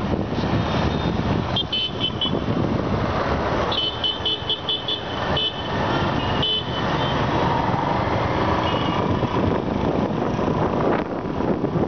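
Wind and road noise of a motorbike riding in highway traffic, with runs of short high horn beeps: a few about two seconds in, then a quick run of about six near four seconds in and a couple more after.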